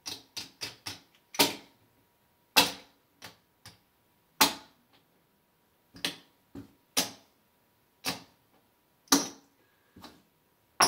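Casino chips clicking against one another as they are counted and stacked by hand: a string of sharp clicks, several in quick succession in the first second, then single clicks about once a second.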